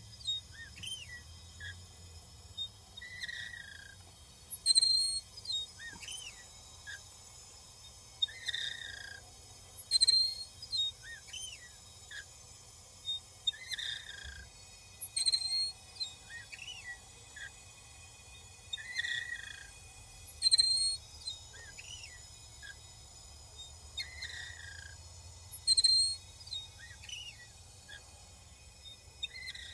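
Residential natural gas meter chirping while gas flows to the running furnace: short, high squeaky chirps that rise and fall in pitch, about one every second or so, with a sharper, louder squeak about every five seconds. The owner does not think this is normal.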